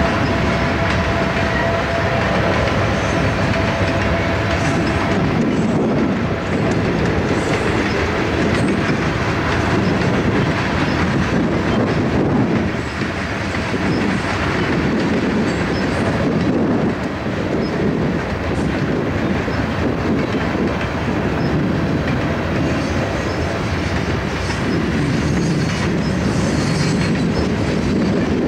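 Freight train of tank cars rolling past at close range: a steady rumble of steel wheels on rail with a repeating clickety-clack as the wheel trucks pass over rail joints. A faint high squeal of wheels is heard in the first few seconds.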